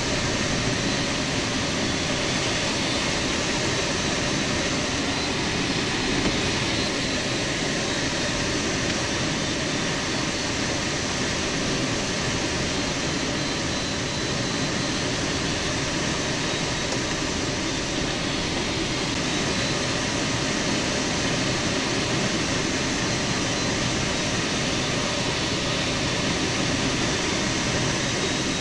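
Steady rush of air over a PW-6U glider's cockpit canopy on aerotow, with the Pawnee tow plane's engine running ahead.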